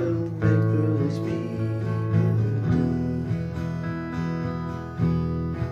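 Acoustic guitar strummed, chords ringing out and changing about every two and a half seconds.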